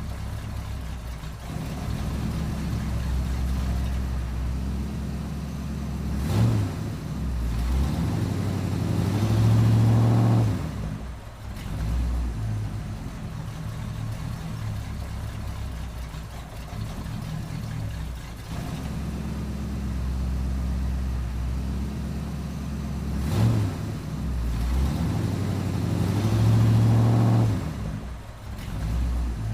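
Car engine running at a low idle. It picks up twice, rising in pitch and loudness over a few seconds, as the car pulls away, then drops back.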